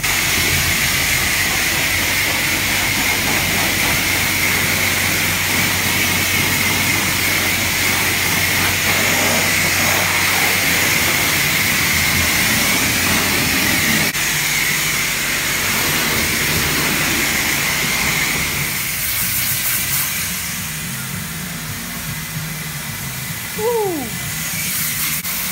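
High-pressure wand at a self-serve car wash spraying water onto a car's side and wheel: a loud, steady hiss with a high whine running under it. The spray eases off and quietens about three-quarters of the way through.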